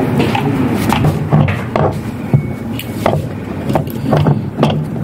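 Plastic knocks and clatter as a semi-automatic washing machine's pulsator is handled and fitted onto the wash tub's shaft: a dozen or so sharp knocks, uneven in spacing, over low steady background noise.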